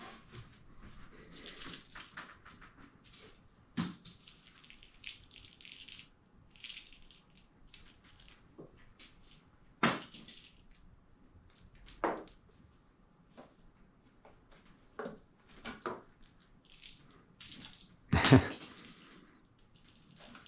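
A cat scrambling and pawing on a carpeted cat tree: scratchy rustling of claws on carpet, with a few sharp knocks as it bats and lands, the loudest pair near the end.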